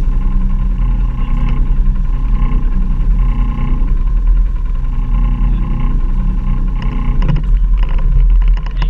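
ATV engine running at steady revs over a heavy low rumble, with a quick series of knocks and rattles near the end.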